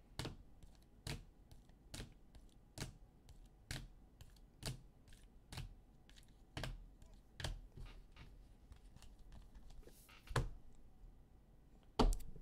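Single sharp clicks or taps at a fairly even pace of about one a second, with a louder knock just before the end.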